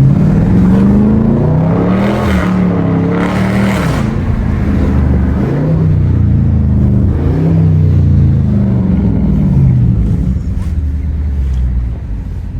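6.4-litre 392 HEMI V8 of a Dodge Charger Scat Pack with a mid-muffler delete, pulling hard under throttle. Its pitch climbs and falls several times. It steadies about ten seconds in and gets quieter near the end.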